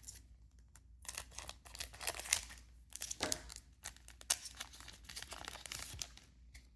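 Foil trading-card booster pack wrapper crinkling and tearing, a dense crackle lasting about five seconds starting about a second in.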